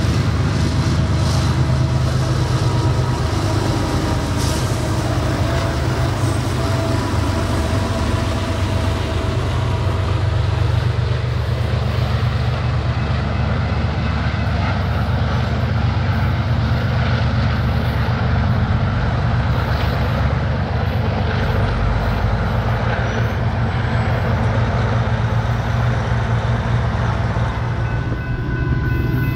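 Loaded freight coal train rolling past a grade crossing: a steady, loud low rumble of the hopper cars on the rails.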